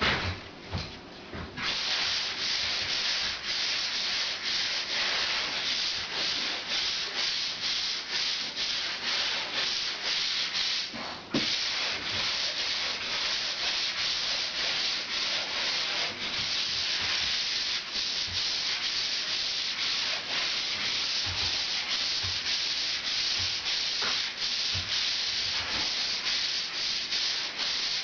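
Sponge sander rubbed by hand over a plastered ceiling join, a steady scratchy hiss in quick back-and-forth strokes that starts about a second and a half in, with a short break near the middle. The plaster is being smoothed to take out scratches and pits and feather the patch into the existing plaster before painting.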